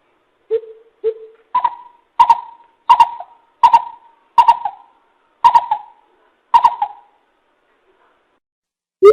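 Greater coucal calling a series of hollow hoots: two lower notes, then about eight higher ones at a steady pace, each trailing off.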